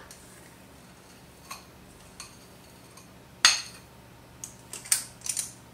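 Metal cookie scoop clinking and scraping against a glass bowl of cookie dough: scattered sharp clicks, the loudest about three and a half seconds in and a quick cluster near the end.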